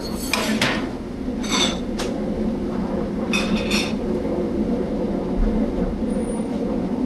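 Pans, plates and utensils clinking and ringing in a busy commercial kitchen, three times in the first four seconds, over a steady kitchen hum.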